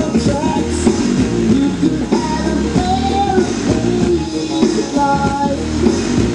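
A pop-rock song with a singing voice, playing loudly and without a break.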